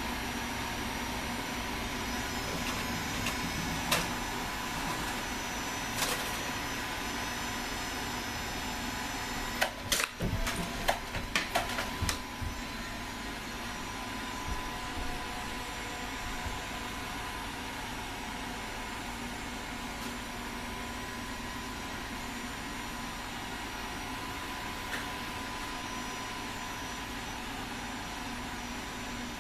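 Sharp clicks and knocks from Nerf blasters and foam darts: one click at about four seconds, another at six, then a quick run of about half a dozen clicks and knocks around the middle. A steady mechanical hum with a faint constant tone sits underneath throughout.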